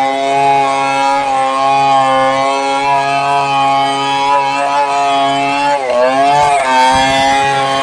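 Stihl 070 two-stroke chainsaw running at high revs as it cuts along the length of a log. About six seconds in, the engine's pitch dips briefly under heavier load, then picks back up.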